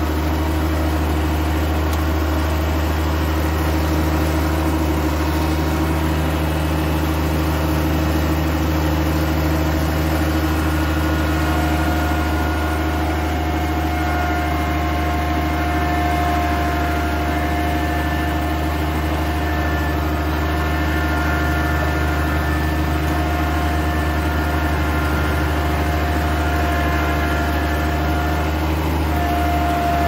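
Skid steer loader's diesel engine running steadily while the machine pushes a pig pen across the ground. A steady high whine joins about twelve seconds in and holds.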